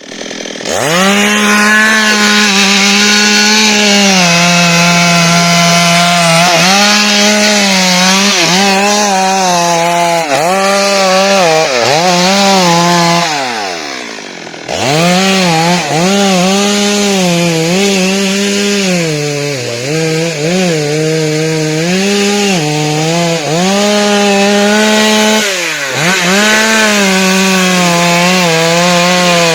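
Chainsaw running at high revs while cutting rubber tree wood, its pitch sagging again and again as the chain bites under load and recovering between cuts. About thirteen seconds in, the throttle comes off and the engine winds down with a falling pitch, then it revs straight back up.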